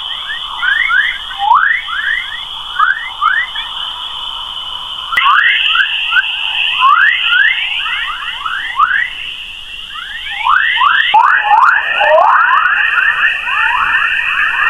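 Sonified space recording of the kind sold as a planet's 'sound': a steady high tone with many quick falling whistles overlapping beneath it, several a second. The steady tone shifts slightly about five and again about eleven seconds in.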